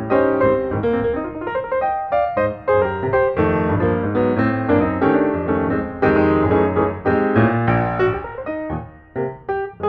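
Background piano music: a steady run of separate notes and chords.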